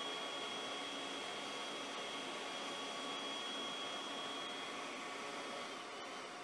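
Steady hiss of running machinery with a thin high whine that stops shortly before the end.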